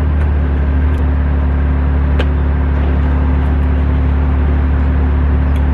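An engine idling with a steady, even low drone, with a few faint clicks about one and two seconds in.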